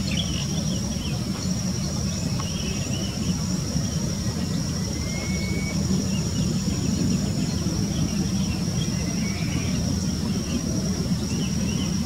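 Outdoor field ambience: a steady low rumble with a continuous high-pitched insect drone, and faint scattered bird chirps with one short whistled glide about five seconds in.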